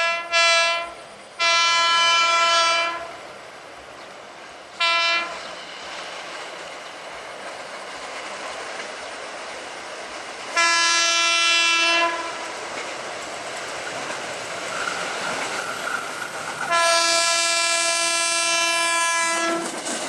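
KRL commuter electric train's horn sounding six blasts: two quick toots, a longer blast, a short one, then two long blasts. Under them the train's running noise grows louder as it approaches and passes.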